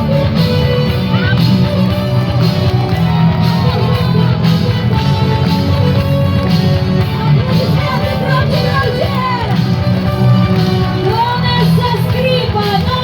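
Loud music playing, with voices singing and shouting over it, more so in the second half.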